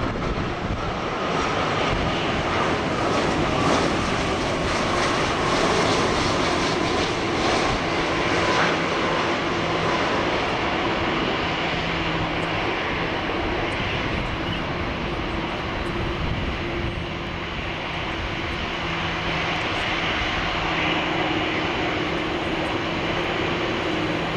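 Airbus A330-300's Rolls-Royce Trent 700 turbofan engines on final approach and flare: a steady jet rush with a few held whining tones through it.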